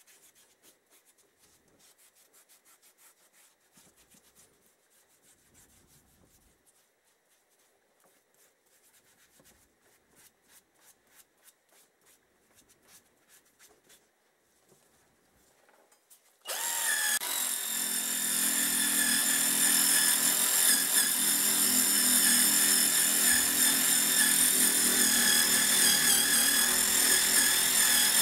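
A cloth rubs cutting compound onto a painted wheel rim in faint, rhythmic strokes. A little past halfway, a small battery-operated polisher starts suddenly and runs steadily with a motor whine, buffing the paint. The polisher is much louder than the rubbing.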